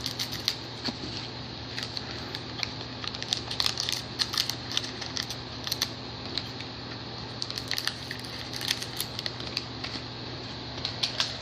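Trading card pack wrappers crinkling and being cut open: a string of irregular short crackles and clicks over a steady low hum.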